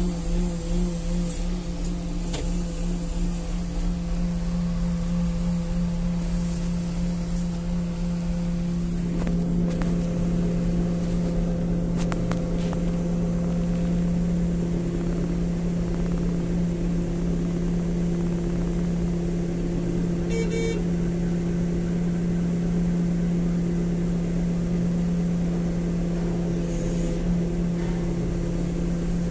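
Crane's engine running steadily: an even, low hum whose tone shifts slightly about nine seconds in.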